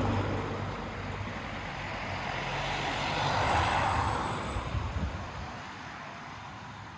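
Traffic passing on the street. An engine's low hum fades out just after the start, then a car's tyre rush swells, peaks about halfway through and fades away.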